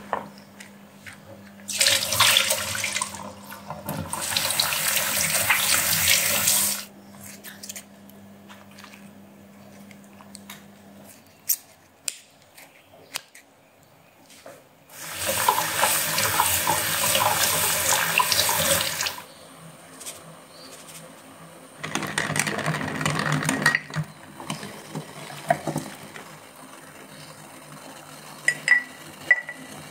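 Water running from a kitchen tap in three spells of a few seconds each, the second and longest near the middle. Small clicks and knocks of handling come in between.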